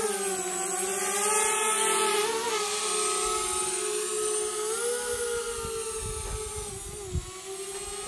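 Small multirotor drone flying, its propellers making a steady whine that drifts slightly up and down in pitch.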